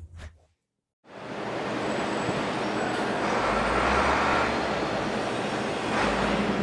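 A brief swoosh, then after a moment of silence a steady wash of street traffic and engine noise, swelling with a low rumble in the middle as a vehicle passes.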